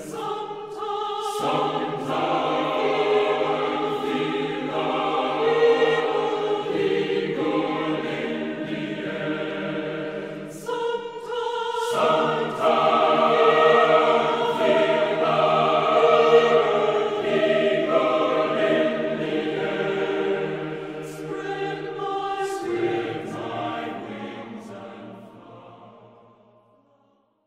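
A choir singing sustained sacred music, with a brief dip between phrases about eleven seconds in, fading out over the last few seconds.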